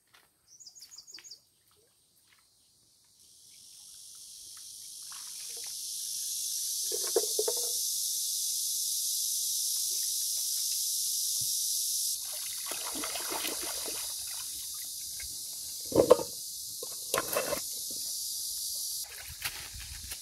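Outdoor ambience: a steady high hiss fades in over the first few seconds and continues, with scattered knocks and rustles; the sharpest knock comes about 16 seconds in.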